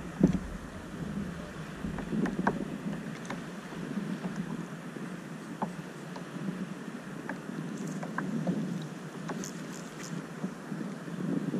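Small waves lapping against a fishing kayak's hull, with scattered light knocks and clicks; the loudest is a thump just after the start.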